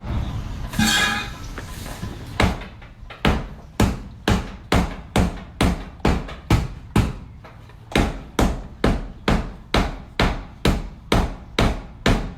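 Hammer blows in a steady rhythm, about two strikes a second and some twenty in all, each with a short ring, starting about two seconds in after a brief clatter.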